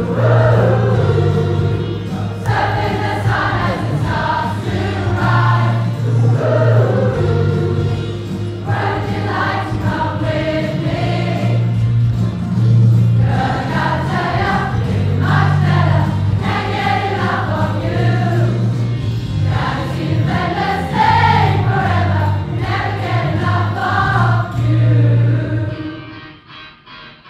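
Large choir of mostly women's voices singing a soul-pop song in many parts over a sustained low part. The singing stops near the end as the song finishes.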